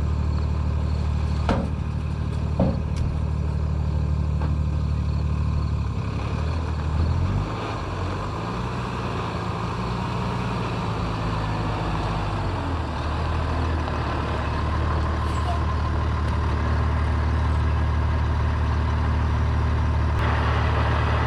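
Diesel dump truck engine running steadily, its engine speed dropping and changing for several seconds mid-way before settling back, with a rush of hissing noise near the end.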